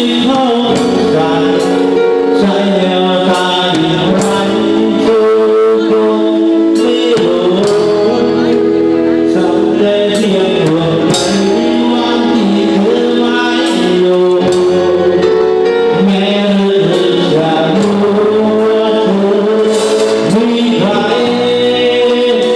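Live Thai ramwong band music: a male singer over a steady drum beat with sustained accompanying instruments.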